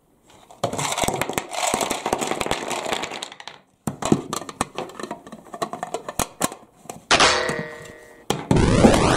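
Plastic shape blocks clattering and rattling inside a plastic shape-sorter ball as it is opened and shaken, in quick runs of clicks and knocks. About seven seconds in a short pitched chime sounds, and near the end a loud rushing whoosh of noise starts.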